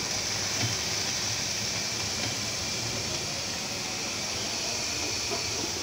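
Chopped gourd and onions frying in oil in a pan: a steady sizzling hiss.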